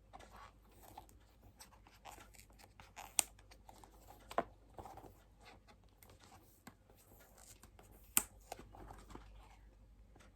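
A small cardboard watch box being opened by hand: faint paper tearing and crinkling, with three sharp taps or clicks along the way.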